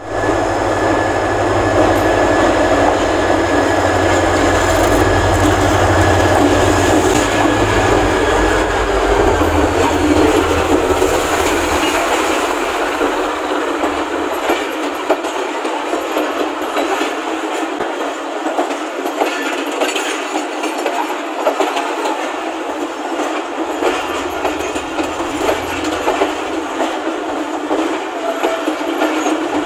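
Pakistan Railways diesel locomotive pulling out with a low engine rumble and a steady whine, both fading out about ten to twelve seconds in. Its passenger coaches then roll past, wheels clicking over the rail joints.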